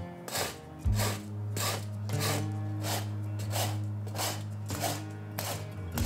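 A rasp shaping a wooden axe handle, with repeated scraping strokes about two a second. Background music with held low notes plays under it.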